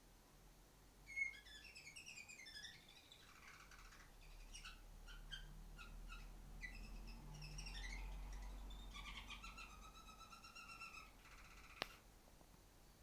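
Female canary chirping and twittering in faint runs of short, quick notes, with a longer stretch of rapidly repeated notes near the end. A single sharp click sounds shortly before the end.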